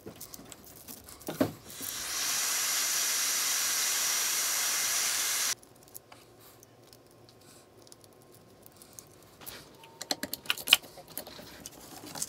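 Small clicks and rattles of a metal 5-pin aviation plug being screwed together and handled on a braided cable. About two seconds in, a steady hiss comes in for three and a half seconds and cuts off suddenly.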